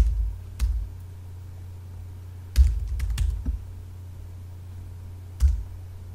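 Keystrokes on a computer keyboard, each with a dull thud: two single taps, a quick run of several a little under halfway, and one more near the end, over a steady low hum.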